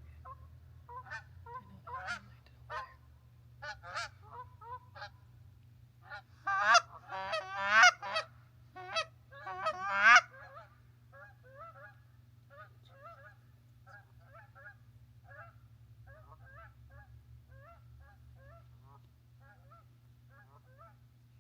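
Geese honking in a run of short calls, loudest and most rapid from about six to ten seconds in, then continuing fainter and more evenly spaced.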